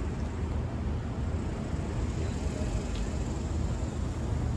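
Steady low rumble of outdoor street background noise, with a faint hiss over it and no other clear event.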